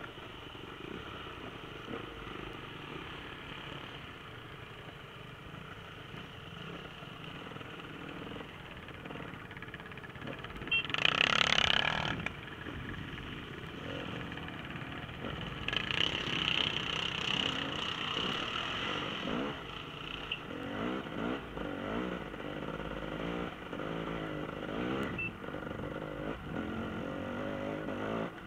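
Enduro dirt-bike engines running and revving, with one loud burst about eleven seconds in and the engine pitch rising and falling repeatedly in the second half.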